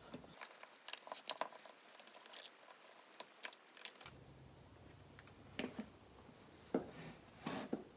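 Faint clicks and taps of a screwdriver working on a chainsaw's plastic air box cover as it is unscrewed and lifted off. A quick run of clicks comes in the first couple of seconds, then a few scattered taps.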